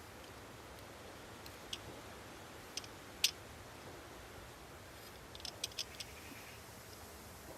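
A few sharp, isolated clicks and snaps over a steady low background: single ones about a second and two seconds in, the loudest shortly after, then a quick cluster of four or five a little past the middle.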